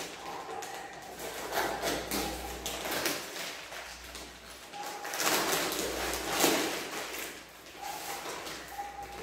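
Small glass spice jars clinking and knocking on a glass tabletop, with brief ringing from the glass, while plastic spice packets rustle as powder is poured into the jars.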